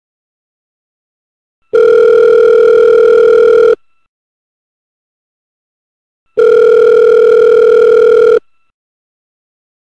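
Telephone ringing with an electronic tone: two rings of about two seconds each, a steady pitched tone with a silent gap of a few seconds between them.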